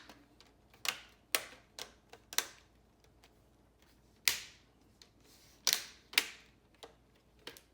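Plastic screen bezel of an Acer Aspire E15 laptop being pressed back onto the lid, its clips snapping into place in a string of sharp, irregular clicks, about nine in all.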